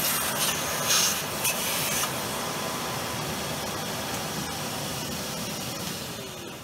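Vacuum cleaner running with its nozzle following a dovetail cutter to suck up cast-iron dust as the saddle's dovetail is milled: a steady hiss that grows brighter for about a second, a second in, and falls off near the end.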